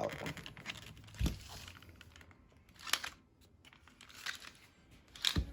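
Plastic steering-wheel trim and wiring being handled and worked loose: scattered light clicks and rustling, with a dull knock about a second in and a sharper knock near the end.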